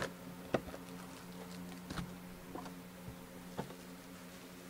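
A few short crinkles and taps as a foil-wrapped trading card pack is handled and set down on a table mat, over a steady low hum.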